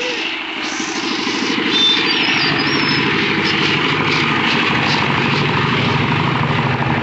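An engine running steadily, getting a little louder about two seconds in.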